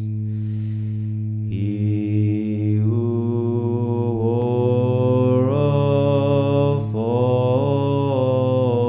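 Byzantine chant: a man's voice holds a steady low drone (the ison). About a second and a half in, a male voice joins above it, chanting an ornamented, melismatic melody line that slides between notes.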